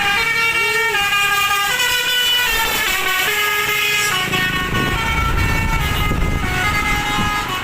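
A tour bus's telolet horn, a multi-tone air horn, playing a melody of held notes that step to a new pitch every half second or so, with the bus engine running underneath.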